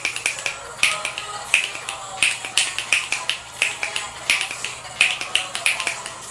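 Finger snaps played as a rhythm, about three sharp snaps a second in an uneven, syncopated pattern, over faint music.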